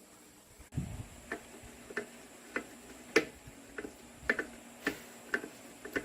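A series of short, sharp ticks or light taps, about two a second and not quite even, starting about a second in.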